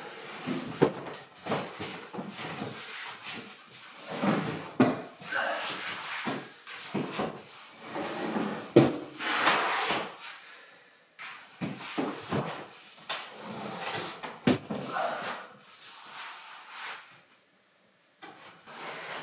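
A heavy peeled log being handled and stood upright: irregular wooden knocks and thuds as its ends bump the floor and timbers, with scraping and rubbing of wood on wood.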